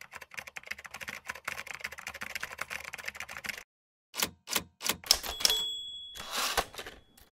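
Typewriter sound effect: rapid keystrokes clattering for about three and a half seconds, then after a short pause a few separate key strikes and a ringing bell ding, with a brief rush of noise near the end.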